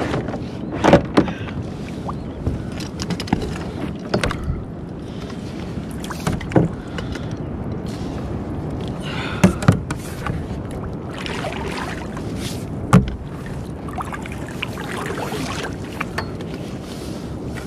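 Steady wind and water noise around a kayak on the open ocean. A handful of sharp knocks and clunks come from gear being handled against the hull, the loudest near the start, in the middle and about two-thirds of the way through.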